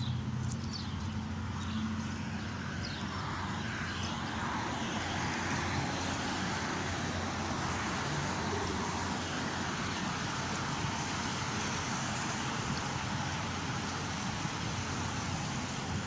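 Steady city traffic noise: a continuous wash of passing cars.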